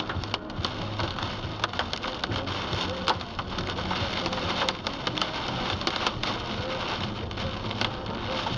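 Heavy rain pelting a car's windscreen and body, heard from inside the car: a dense hiss full of sharp drop impacts over a steady low road hum.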